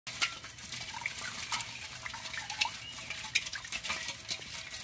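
Water dripping and trickling from a woven bamboo fish trap tipped over an aluminium pot, with many small sharp clicks and taps as live shrimp and small fish drop and flick against the metal pot.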